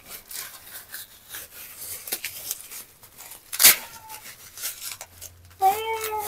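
Thin black plastic bag crinkling and rustling as it is worked off a broom, with a louder crackle partway through. A short high-pitched voice sounds near the end.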